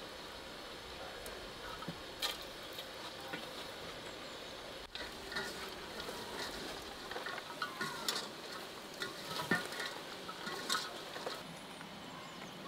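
Hands mixing and squeezing chopped fresh herbs and garlic in an enamel basin: a moist rustling with many small irregular crackles and clicks, busiest in the second half.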